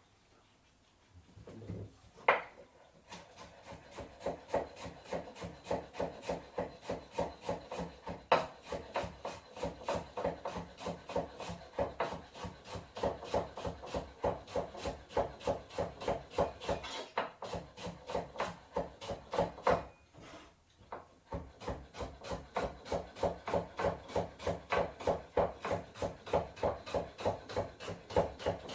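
Salad being prepared on a wooden board: quick rhythmic scraping strokes, about three a second, that stop briefly about two-thirds of the way through and then carry on.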